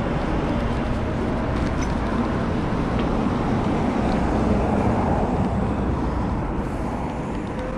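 Steady road-traffic noise with a low rumble, a little louder around the middle.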